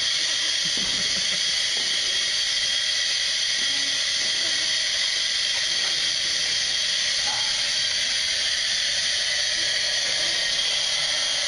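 Steady hiss of helium gas flowing from a pressurised tank through the fill line into a high-altitude balloon as it is inflated.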